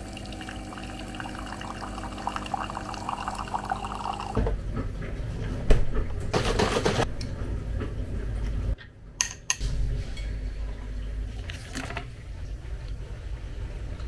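A drink being poured for about four seconds. Then a few sharp knocks and brief rushes of handling noise follow.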